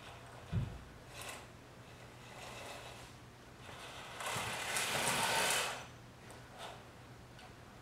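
Small DC gear motors of a hobby robot car whirring in short bursts as it is driven with PWM speed control, the longest and loudest burst lasting about a second and a half near the middle, with a single low thump just after the start.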